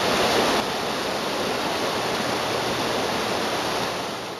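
Mountain stream rushing over rocks: a steady rush of water that eases slightly near the end.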